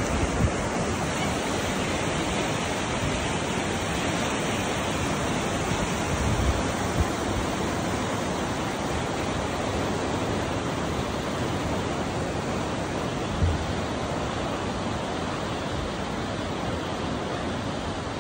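Steady rush of water from Takkakaw Falls and the river below it, easing a little near the end. A few brief low thumps stand out above it.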